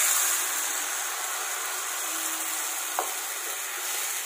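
Tamarind pulp poured into hot oil and cumin seeds in a frying pan, sizzling hard at first and then settling to a steady hiss while a wooden spatula stirs it. A single light knock comes about three seconds in.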